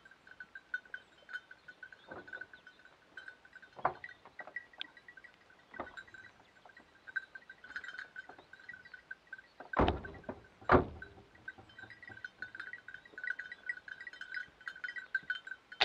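Small bells jingling faintly and steadily throughout, with a few sharp knocks of gear being handled on a pickup's metal truck bed. The two loudest knocks come close together about ten seconds in.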